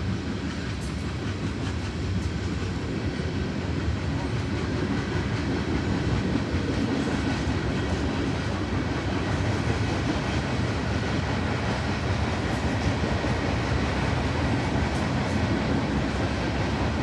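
Union Pacific coal train's coal cars rolling past, a steady rumble and rattle of steel wheels on the rails.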